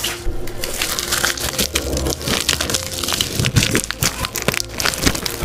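Foil-lined wrapper of a pack of butter cream crackers crinkling as it is handled and torn open, a quick, continuous run of crackles and rustles.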